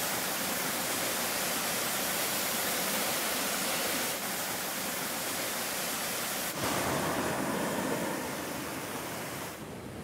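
Small waterfall cascading over rock into a pool, a steady rush of falling water heard up close. The sound shifts slightly about four and six and a half seconds in, then drops to a quieter hiss shortly before the end.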